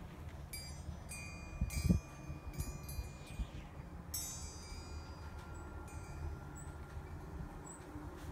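Fish-shaped wind chime tinkling in a breeze, with several clusters of light strikes and ringing tones in the first half that thin out after about five seconds. A low breeze rumble runs underneath, with one louder thump about two seconds in.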